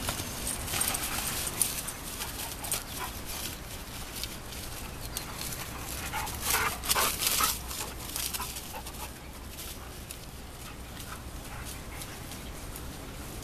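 Two dogs, one a pit bull, playing, with a cluster of short dog vocalizations about six to seven seconds in and scattered sharp clicks through the first half.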